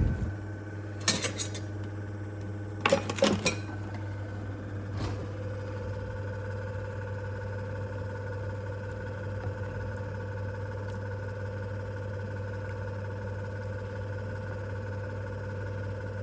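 A metal spoon clinking against a cooking pot in a few short clusters over the first five seconds, then a steady even hum from a kitchen appliance.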